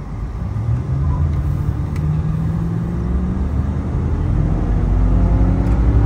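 1993 Ford Thunderbird's 5.0-litre HO 302 V8 at wide-open throttle, the engine note climbing steadily in pitch and growing louder as the car accelerates, heard from inside the cabin.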